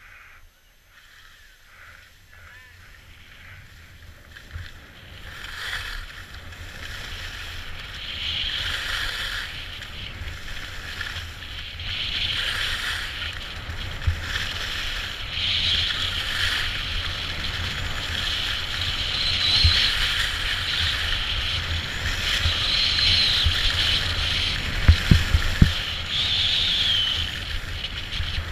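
Sliding down a groomed ski slope: edges hiss and scrape over packed snow, swelling with each turn every few seconds and getting louder as speed builds. Wind rumbles on the body-worn camera's microphone, with a few low thumps near the end.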